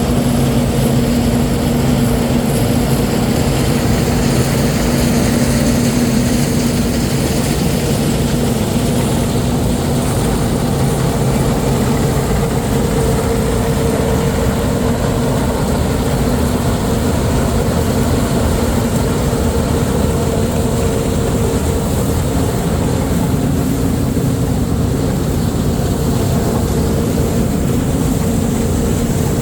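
Heavy diesel farm machinery running steadily at constant engine speed, a continuous low rumble with a steady hum.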